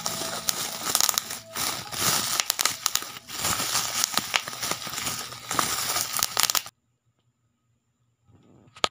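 Bubble wrap squeezed and worked in the hands, a dense run of crinkling with many sharp pops and crackles that cuts off suddenly about two-thirds of the way through. One sharp click comes at the very end.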